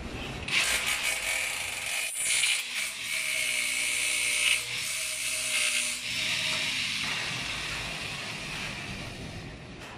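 Corded electric drill boring into a lightweight precast concrete wall panel, a loud high grinding hiss that starts about half a second in and stops about six seconds in. The motor's whine then fades out over the next few seconds.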